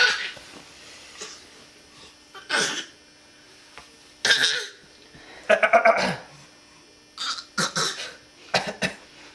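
A baby coughing in short, sharp bouts, about six across the span, some as quick runs of two or three coughs.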